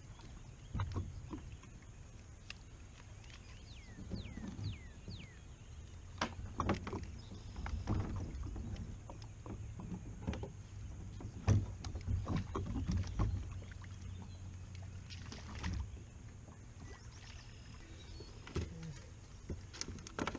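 Scattered knocks, taps and clatters of gear being handled on a plastic kayak, busiest in the middle, over a low steady rumble. A few short falling chirps come about four to five seconds in.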